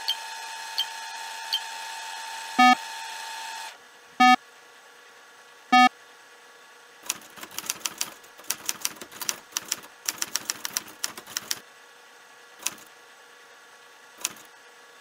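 Computer terminal sound effects: a steady electronic hum that cuts off after nearly four seconds, three short loud beeps about a second and a half apart, then a fast run of keyboard typing clicks as text types onto the screen, and two single clicks near the end.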